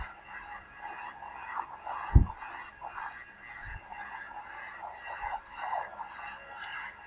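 Thin, band-limited radio sound with choppy, unintelligible chatter, and one loud low thump about two seconds in.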